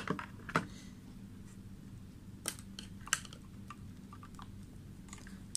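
A few sharp clicks and taps from a Sanwa CD800a digital multimeter's rotary selector switch being turned and the meter being handled. Two clicks come right at the start and two stronger ones come a little before the middle, over a faint steady low hum.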